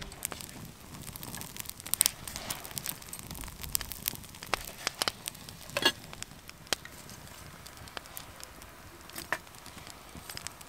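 Small wood fire of split sticks crackling in a camp twig stove, with frequent irregular sharp pops and snaps over a low steady hiss.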